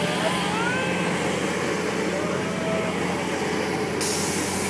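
Steady mechanical hum and hiss of an amusement-park helicopter ride running, with faint distant voices; the hiss grows brighter about four seconds in.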